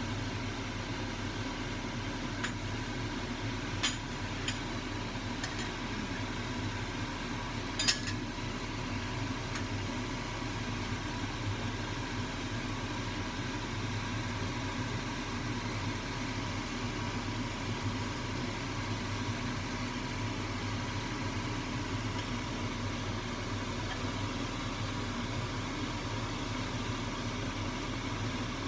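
A metal ladle clinks against a pot and a china bowl a few times in the first eight seconds as soup is ladled out, the loudest clink near eight seconds in. A steady mechanical hum runs underneath.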